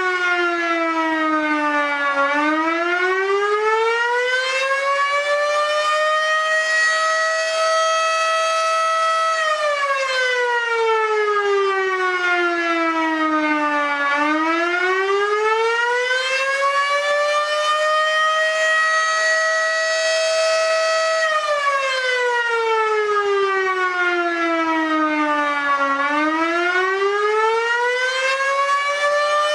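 Federal Signal electromechanical fire siren sounding the attack signal. Its tone rises for about four seconds, holds high for about three seconds, then falls, in a repeating wail about twelve seconds a cycle.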